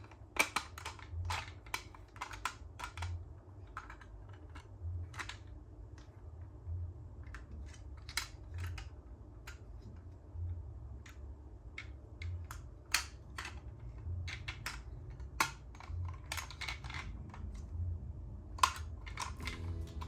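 Small plastic toy cars clicking and clattering irregularly as they are handled and run down a plastic toy slide, with a faint low pulse about once a second underneath.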